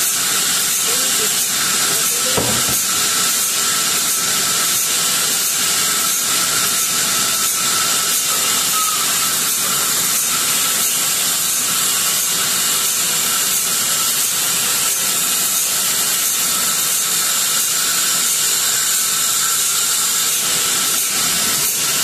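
Large vertical band saw ripping a log lengthwise: a loud, steady hiss of the blade cutting through the wood, with a faint high tone held under it.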